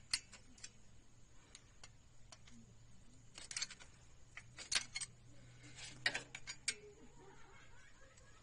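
Ring spanner and screwdriver clicking against the rocker arms and adjusting screws of a Maruti Suzuki Alto engine's valve gear during a tappet clearance adjustment. The clicks are sharp and scattered, with quick clusters a few seconds apart.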